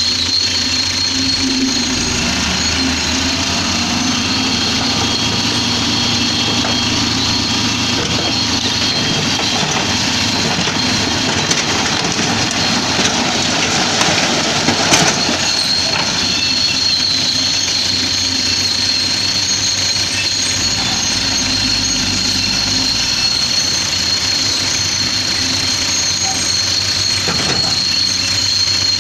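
Heavy diesel truck or construction-machine engines running steadily, with a continuous high-pitched squeal over them that drops out briefly about halfway through.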